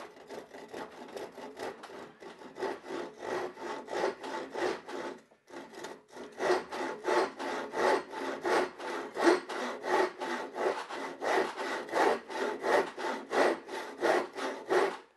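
Western push-style hand saw cutting through a wooden block held in a bench vise, in quick back-and-forth strokes. The strokes stop briefly about five seconds in, then resume faster and louder.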